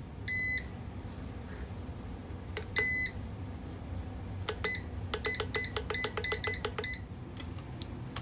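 Electric kettle's push-button control panel beeping as its temperature buttons are pressed. There are two longer beeps, then a short one, then a quick run of about a dozen short beeps, each a single high tone.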